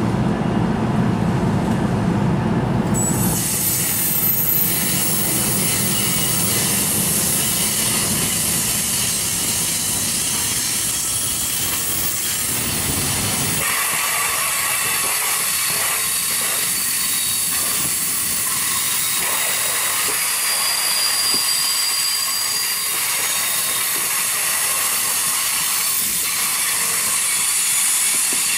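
NJ Transit Multilevel commuter train rolling along the station track: a heavy low rumble that cuts off about 14 seconds in, under a loud, steady high hiss of air and wheels with faint high-pitched wheel squeals.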